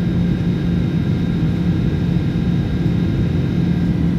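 Steady cabin drone of an airliner in flight: engine and air noise with a low hum and a faint high whine.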